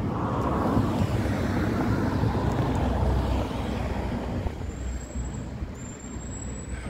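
A car passing on the street: a rush of engine and tyre noise that swells in the first second, holds, then fades after about four seconds. A faint, thin, high whine rises slightly near the end.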